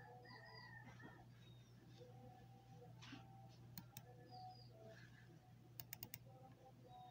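Near silence over a faint steady low hum. Faint bird chirps come and go in the background. Sharp clicks, likely computer mouse clicks, come twice about four seconds in and in a quick run of four about six seconds in.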